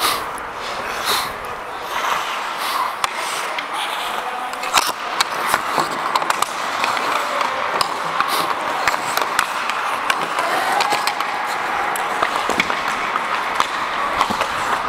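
Ice hockey skate blades scraping and carving on the ice, a steady hiss, with many scattered sharp clicks and knocks throughout.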